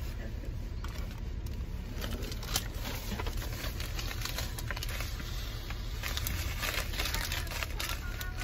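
Paper-and-plastic medical packaging crinkling and crackling in hand, a self-seal sterilization pouch and an instant cold compress packet, with the crackle growing busier near the end. A steady low rumble runs underneath.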